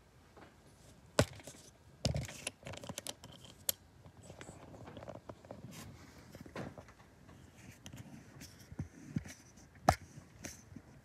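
Handling noise from a phone camera being turned and repositioned: scattered clicks and knocks, the sharpest about a second in and near the end, with light rustling between.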